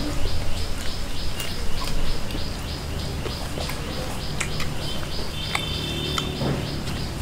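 A rapid high chirping repeating evenly about four times a second, with a short steady whistled note a little after five seconds in. Scattered soft clicks and squelches come from a hand mixing and squeezing rice on a plate.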